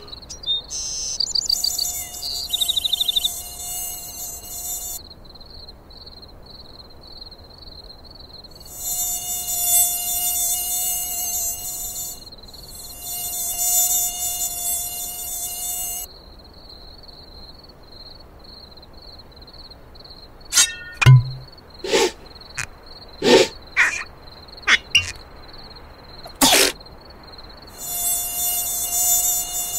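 Cartoon mosquito buzzing in flight, in stretches of a few seconds that start and stop, over a steady high, pulsing trill. About two-thirds of the way through comes a quick run of short, sharp sounds.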